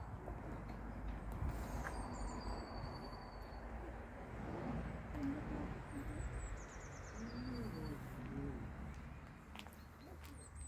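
A small songbird repeats a short, high song that steps down in pitch about every four to five seconds, over a steady rumble of wind on the microphone.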